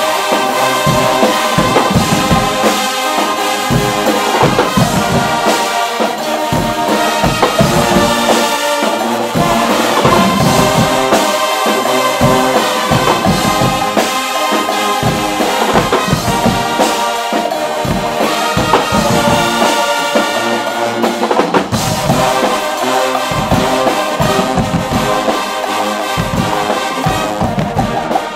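Guggenmusik brass band playing loud: trumpets and trombones in full ensemble over a drum kit, bass drums and cymbals keeping a steady beat.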